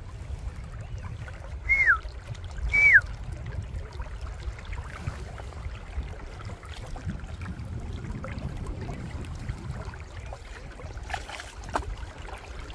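River water running steadily. Near the start there are two short whistled notes about a second apart, each falling in pitch, and these are the loudest sounds.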